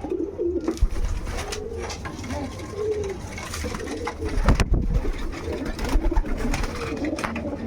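Domestic pigeons cooing repeatedly, with a few sharp knocks among the calls.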